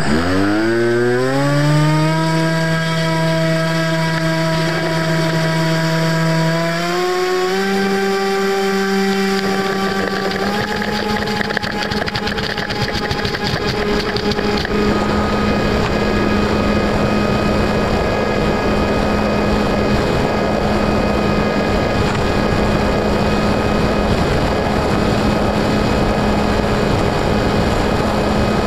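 FPV Raptor model plane's brushless electric motor and pusher propeller throttling up for takeoff, heard from on board. A whine climbs quickly in pitch, steps up twice more in the first ten seconds, then holds steady under a growing rush of air as the plane flies.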